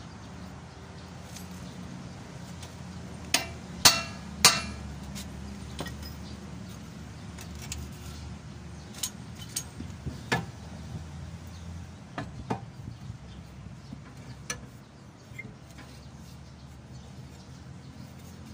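Metal clanks and clinks of steel hand tools and truck front-axle parts being handled: three loud knocks close together about three to four and a half seconds in, then scattered lighter clinks. A low steady hum runs underneath until about two-thirds of the way through.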